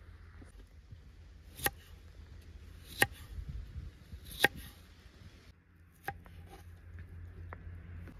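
Three sharp chopping strikes about a second and a half apart, each with a short ring, followed by a fainter knock.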